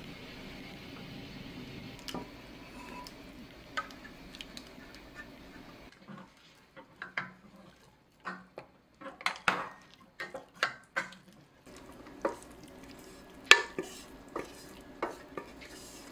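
Wooden spatulas scraping and knocking against the inside of a stainless-steel cooker pot, working loose scorched rice (nurungji) stuck to the bottom. A few clicks over a low hum at first, then a busy run of sharp knocks and scrapes from about six seconds in.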